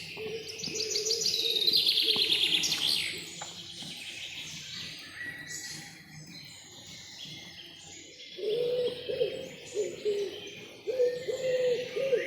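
Forest birdsong: a songbird's fast high trill sliding down in pitch in the first few seconds, with scattered chirps. From about eight seconds in comes a run of short, low, repeated hooting calls.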